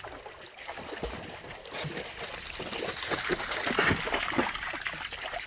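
Shallow river water splashing and trickling as something wades through it, a run of small irregular splashes that grows louder about two seconds in.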